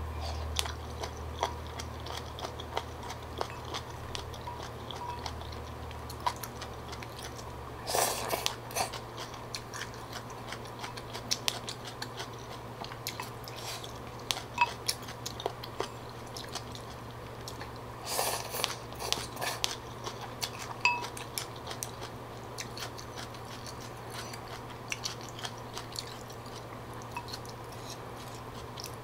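Close-miked chewing of beef tendon and pho rice noodles: small wet mouth clicks and crunches, with a few louder bursts about 8 seconds and 18 to 20 seconds in, over a steady low hum.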